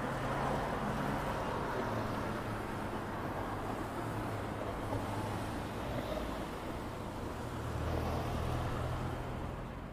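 Road traffic noise: a steady wash of passing vehicles with a low engine hum.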